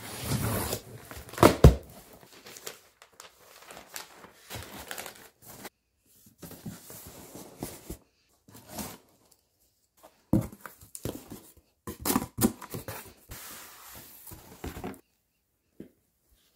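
A taped cardboard shipping box being torn open, loudest in the first two seconds, followed by irregular rustling and crinkling of crumpled packing paper and cardboard flaps being handled. The sounds stop about 15 seconds in.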